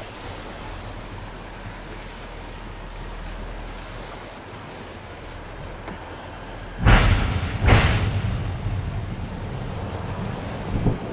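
Steady wind rumble on the microphone, then two loud buffets on the microphone about seven and eight seconds in.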